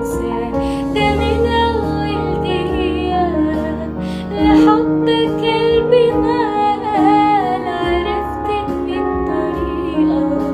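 A woman singing an Arabic pop song with ornamented, wavering runs over sustained keyboard chords.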